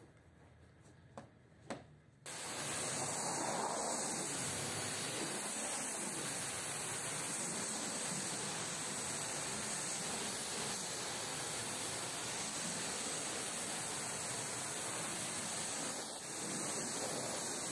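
High-pressure washer jet spraying against the tarpaulin side of a truck trailer: a steady, loud hiss that starts suddenly about two seconds in, after a few faint taps, and dips briefly near the end.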